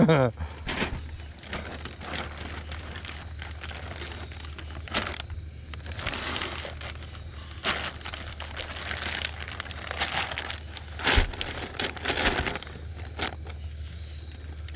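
Plastic fish weigh-in bag crinkling and rustling as it is handled and set on the scale tray, with scattered light knocks, over a steady low hum.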